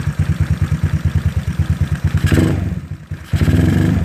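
GY6 single-cylinder four-stroke scooter engine running at idle with even, rapid firing pulses. A little past three seconds in it sags, then picks up again and runs louder. The idle mixture screw is being set richer.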